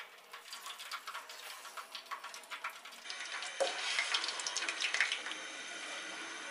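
Boondi frying in hot oil, a hissing sizzle that turns steady in the second half, with clinks and scrapes of a metal perforated ladle against the pan and a plate, loudest a little past the middle.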